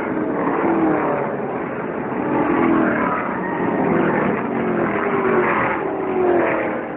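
NASCAR Xfinity Series stock cars with V8 engines passing the grandstand one after another. Each engine's pitch falls as the car goes by, so the sound swells and drops several times.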